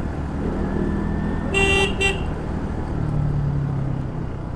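A vehicle horn honks twice about a second and a half in: a longer note, then a short one. Underneath is a steady run of engine and road noise from riding through traffic.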